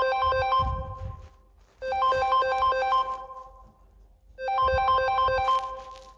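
A Samsung Galaxy A40 ringtone playing: a short, quick phrase of bright melodic notes that repeats three times, about every two and a half seconds, each time fading before the next.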